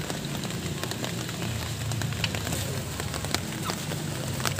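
Screwdriver working a drum-brake shoe adjuster, giving a few scattered small metallic clicks over a steady low hum.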